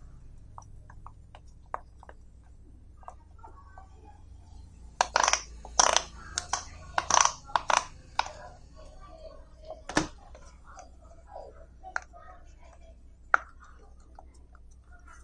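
Silicone pop it fidget toys being pressed, their bubbles popping with sharp clicks: a few soft ones at first, then a quick run of louder pops about five seconds in, and single loud pops later on.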